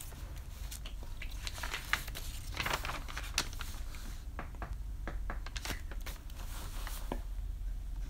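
A plastic Elmer's clear glue bottle being squeezed upside down, its thin sides crinkling and clicking irregularly as the glue is forced out. A steady low hum runs underneath.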